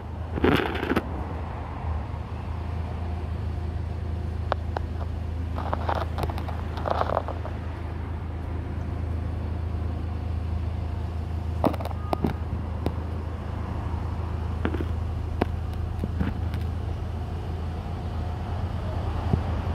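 Steady low outdoor rumble, with scattered faint clicks and a few brief rustling noises.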